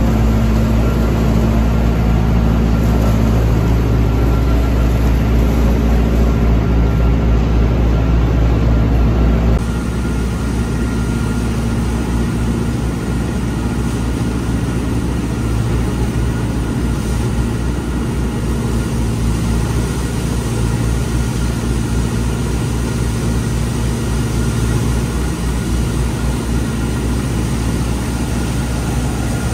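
A tractor engine runs steadily while driving a Teagle straw blower that is spreading straw. About ten seconds in the sound changes abruptly to a slightly quieter run with a rapid low pulsing.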